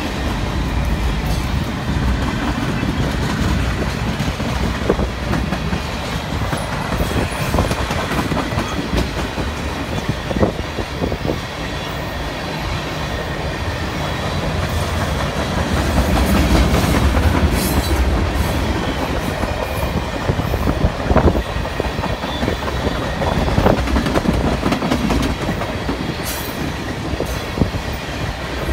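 Freight cars of a long mixed freight train, tank cars and covered hoppers, rolling past close by: a steady low rumble of steel wheels on the rails with repeated sharp clicks and clacks as the wheels cross rail joints, swelling louder about two thirds of the way through.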